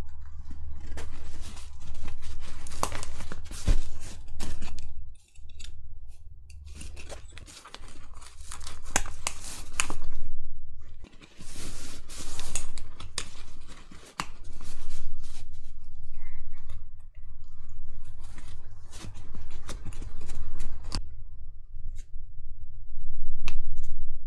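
Hands working a fabric backpack while a drone-mount kit is bolted through it: rustling and scraping of the padded nylon cloth with many sharp clicks and snips, in uneven bursts over a steady low hum.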